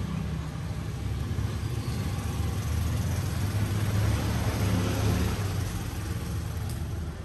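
A steady low engine hum with a noisy haze over it, a little louder about halfway through.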